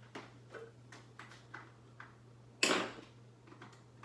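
Clicks and taps of metal parts being worked loose on an old fluorescent ceiling light fixture, with one louder clank about two and a half seconds in, over a steady low hum.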